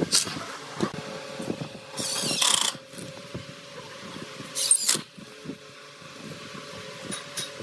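Makita cordless impact driver running in two short bursts as it drives screws into pine boards, the first about two seconds in, the second briefer near five seconds. Light clicks of screws and the driver being handled in between.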